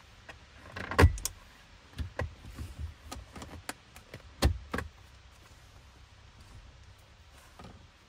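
Plastic retaining clips of an Audi B7 RS4's gear boot surround cracking and snapping as the trim frame is pried up out of the centre console. A loud crack comes about a second in, then a run of smaller clicks, and another sharp crack at about four and a half seconds.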